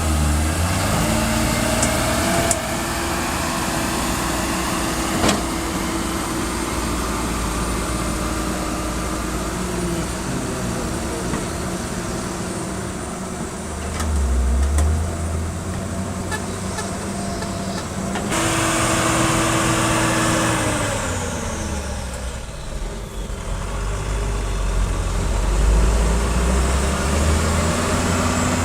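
Kobelco SK140 excavator's diesel engine running under hydraulic load, its pitch dropping and climbing again several times as it works. Two sharp knocks come in the first few seconds.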